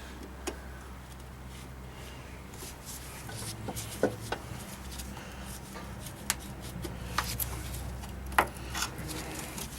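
Screwdriver working at plastic push rivets under a car's hood: scattered clicks, scrapes and small snaps as the rivet centres are pried out, the sharpest snap about eight seconds in, over a steady low hum.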